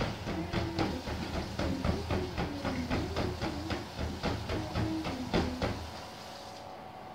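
Latex punching balloon batted rapidly by hand on its rubber band, about four to five slaps a second, with wordless humming over it; the slapping stops about a second before the end.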